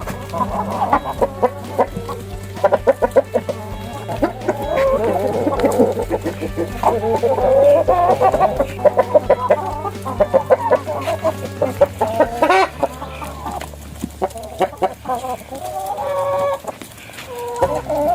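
A flock of chickens clucking busily and continuously, over background music.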